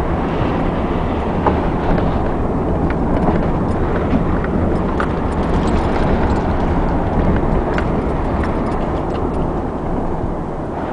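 Car driving slowly on a snow-covered road, heard from inside the cabin: a steady low rumble of engine and tyres with scattered light clicks and crunches.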